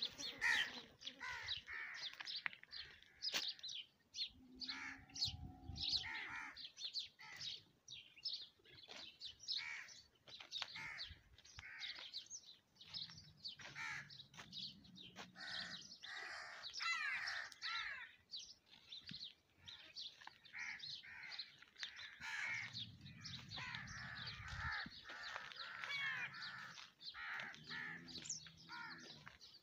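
A chorus of birds calling and chirping, many short calls overlapping without a break, with a few low rumbles of a second or two underneath.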